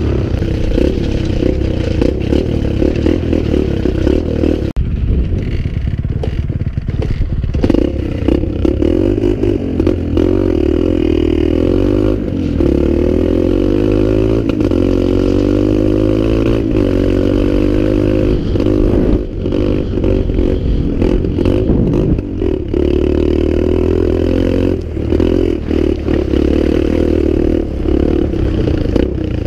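Dirt bike engine running while riding, its pitch rising and falling as the throttle is opened and closed.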